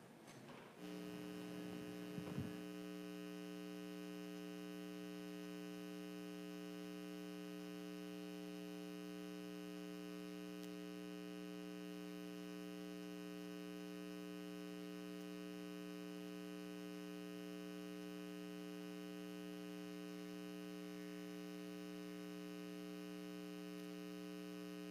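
Steady electrical mains hum in the audio feed, a buzz that switches on abruptly about a second in and holds unchanged. A short click follows a couple of seconds in.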